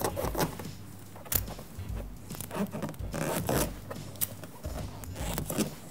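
Strips of clear sticky tape being peeled off and pressed and smoothed onto an inflated latex balloon, giving short, irregular zip-like rips and rubbing crackles.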